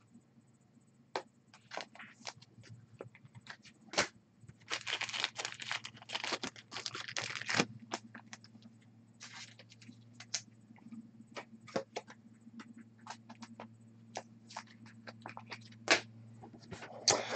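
Foil wrapper of a football trading-card pack being torn open and crinkled, with scattered clicks and scrapes of cards being handled. The crinkling is densest from about a third of the way in to the middle, over a faint low hum.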